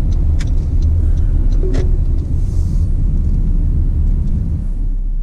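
Road vehicle in motion, heard from inside: a steady low rumble of engine and tyre noise that eases off about four and a half seconds in as the vehicle slows down.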